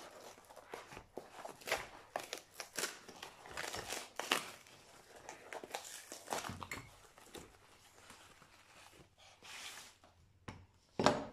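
Cardboard packaging being torn open and crumpled by hand, a run of irregular rips and crackles that thins out after about eight seconds. Near the end comes one short, loud knock as the red cast pipe-clamp parts are handled.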